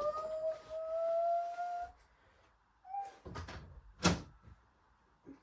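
Washing machine motor whine rising in pitch as the drum speeds up, cutting off suddenly about two seconds in. A few knocks follow, then one loud sharp bang about four seconds in.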